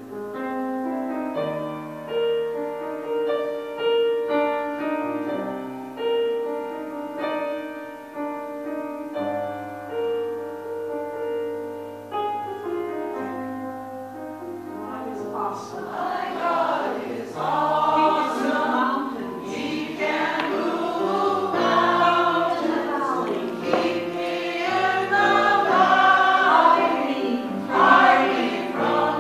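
Gospel choir singing with accompaniment. It opens on steady held chords, and about halfway through the choir comes in fully, singing louder toward the end.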